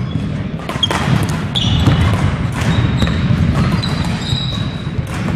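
Badminton rally on a wooden gym floor: a few sharp racket-on-shuttlecock hits in the first second or so, then sneakers squeaking on the floor, over steady thudding footsteps and the low rumble of a large hall.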